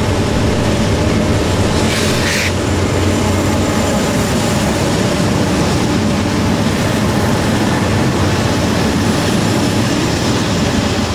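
A line of GE diesel-electric freight locomotives passes close, engines working hard up a grade, with a loud steady low drone and rolling wheel noise on the rails. A brief high hiss comes about two seconds in.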